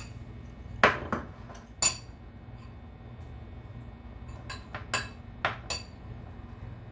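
Glass kitchenware knocking and clinking against the counter and dishes. A few sharp clinks come about a second in, and a quicker cluster around five seconds in.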